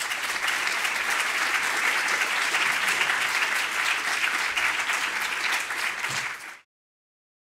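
Audience applauding at the end of a lecture: dense, steady clapping that cuts off abruptly about six and a half seconds in.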